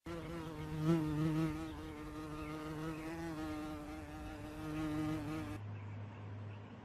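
A flying insect buzzing steadily, its pitch wavering slightly, stopping abruptly about five and a half seconds in.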